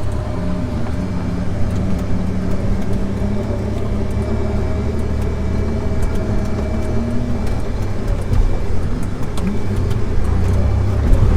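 Jeep Wrangler TJ engine running as the Jeep drives along, its pitch rising and falling gently with the throttle and getting a little louder near the end.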